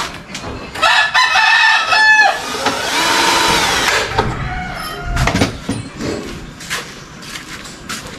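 A rooster crowing once, about a second in, in one long call of about three seconds that falls away at the end. After it come a few light knocks and clicks.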